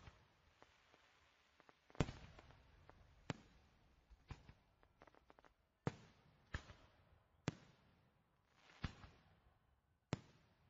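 Fireworks going off: about eight sharp bangs at uneven gaps of one to two seconds, each trailing off in an echo, with a patter of small crackles around the middle.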